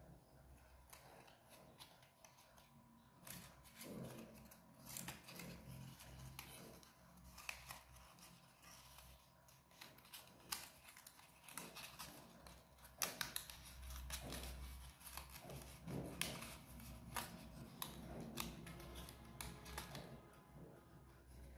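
Faint rustling and crackling of stiff paper as hands fold and press the glued pieces of a paper model, with many small irregular clicks.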